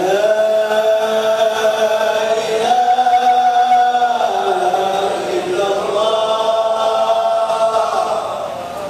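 A man's voice chanting Sufi dhikr in long, drawn-out held notes that shift in pitch a few times and fall away near the end.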